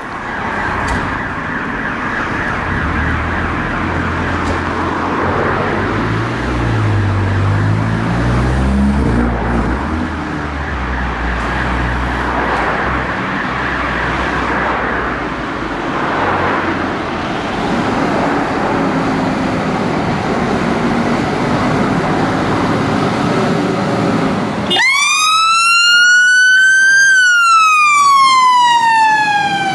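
Diesel engine of a Volvo FL fire engine running and revving as the appliance pulls away. About 25 s in its siren starts a wail, rising in pitch for about two seconds and then sliding down.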